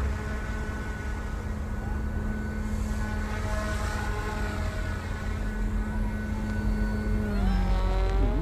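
OMP Hobby M1 mini RC helicopter's twin direct-drive brushless motors and rotors whining steadily in flight. Near the end the pitch dips and then climbs again as the helicopter manoeuvres.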